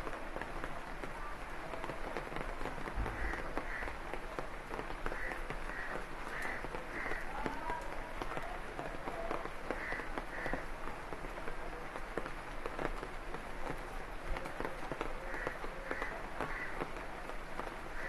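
Steady rain pattering on leaves and ground, a dense hiss full of small drop ticks. Short high calls from some small animal repeat irregularly behind it.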